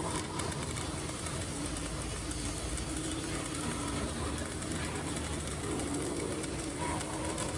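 CO2 MIG welding arc running a vertical-up (3G) weld: a steady, even hiss that holds without a break.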